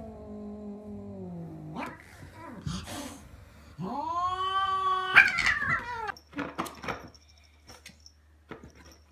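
A cat yowling: one long low call that slowly falls in pitch, then about two seconds later a second, louder drawn-out yowl that rises and holds. Both are the low, wavering caterwaul of one cat warning off the other.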